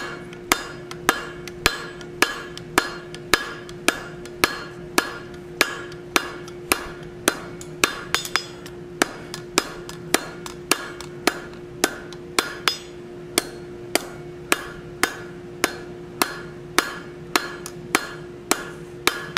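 Hand hammer striking hot mild steel flat stock on an anvil at an even pace of about two blows a second, each blow with a short metallic ring, as the bar is drawn out to lengthen it. A faint steady hum runs underneath.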